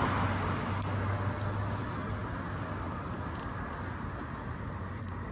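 Road traffic noise: a passing car's sound fading away steadily, with a low engine hum underneath.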